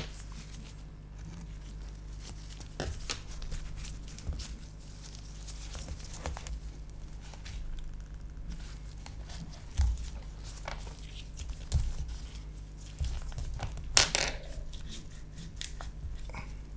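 Crackling, scraping and small clicks as the adhesive-glued battery cells of a 15-inch Late 2013 MacBook Pro are pried and worked loose, with a sharper crack about fourteen seconds in.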